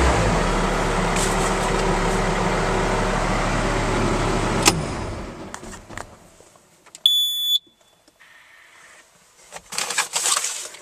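Skid steer loader's turbocharged Kubota diesel running with the cab blower, then shut off about five seconds in and dying away within a second. About seven seconds in, a single short electronic beep sounds, followed by near silence and a few faint clicks.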